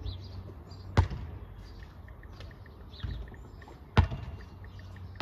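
A basketball hitting a hard outdoor court: two sharp bangs about three seconds apart, with a softer thud between them. Birds chirp faintly in the background.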